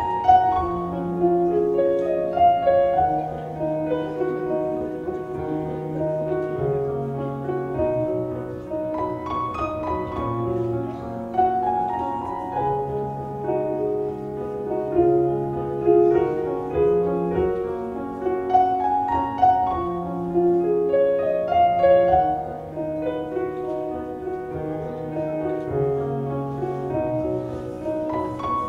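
Solo piano music: a flowing line of many quick notes over held low notes, playing without a break.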